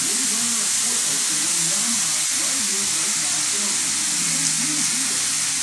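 Steady hiss of a butane soldering iron burning gas while its hot knife-edge tip cuts a groove into ABS plastic.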